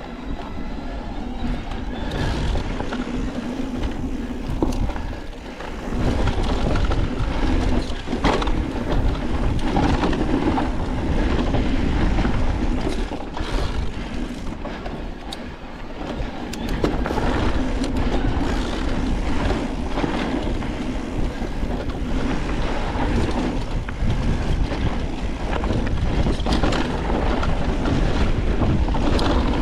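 Niner WFO e9 electric mountain bike riding a rough dirt singletrack: tyres rumbling over dirt and rock, with the frame and parts clattering and knocking over bumps throughout.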